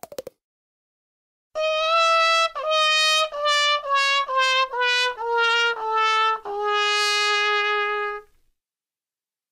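Trumpet sound effect playing a descending run of about eight short notes, each a step lower, ending on one long held low note: the comic 'wah-wah' losing jingle used to mark a failure.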